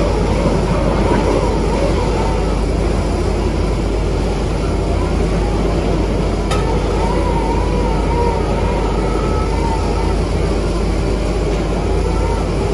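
Diesel engine of an XCMG XR360 rotary drilling rig running steadily, a constant low rumble with a faint wavering whine on top.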